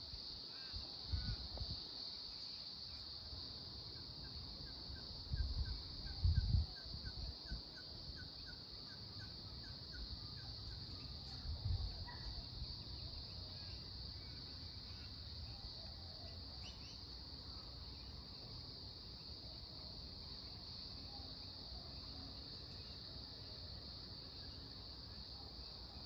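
Cicadas droning steadily at a high pitch in the summer heat. A distant bird calls a quick run of short repeated notes, about two or three a second, for several seconds, and a few low rumbles and thumps come near the start and again around six seconds in.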